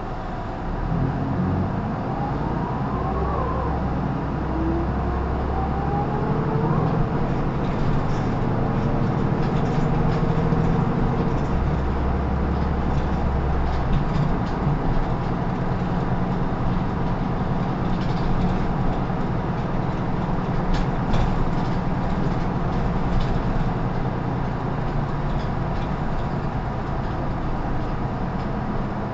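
Isuzu Erga Mio (PKG-LR234N2) city bus's diesel engine heard on board, pulling away and accelerating with rising whines over the first several seconds, then running steadily at speed.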